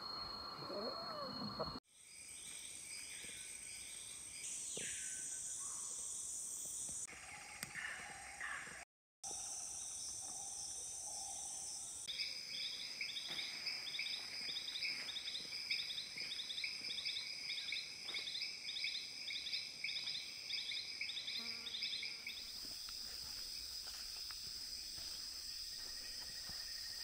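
A small striped poison frog calling: a short buzzy note repeated about twice a second for some ten seconds, over the steady high drone of rainforest insects.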